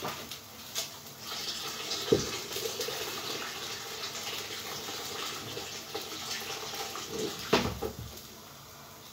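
Water running from a tap for several seconds. There is a sharp knock about two seconds in and another near the end, just before the flow stops.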